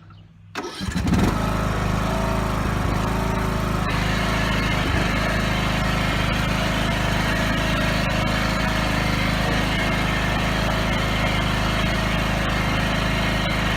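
John Deere riding lawn mower engine running steadily, coming in loud about a second in.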